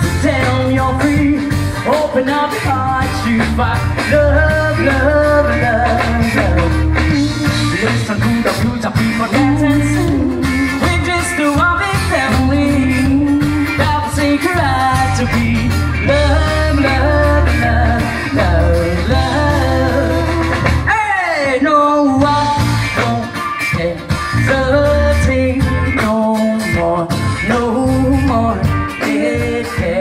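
Live rock band playing through a PA: electric and acoustic guitars over a steady bass line, with a singer.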